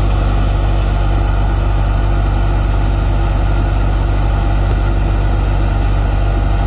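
Deepak multicrop thresher running steadily under load as dried crop heads are fed into it: a constant loud mechanical drone with a deep low hum.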